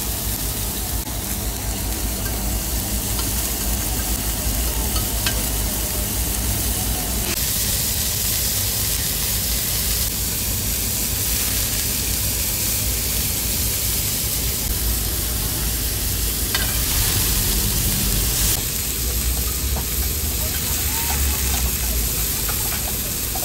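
Pork belly sizzling steadily as it fries on a hot grill.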